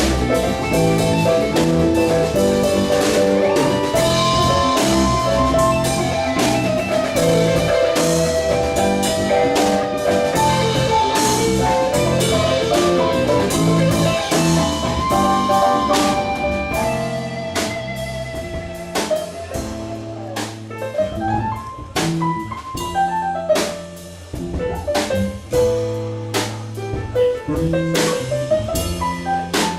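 Live band playing an instrumental passage, drum kit with melodic instruments over it. About halfway through the sound thins out to sparser drum hits and held bass notes.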